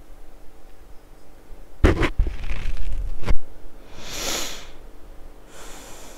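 A few sharp thumps into a close microphone about two seconds in and again just after three seconds, then a loud breath or sniff into the microphone about four seconds in, with a weaker one near the end.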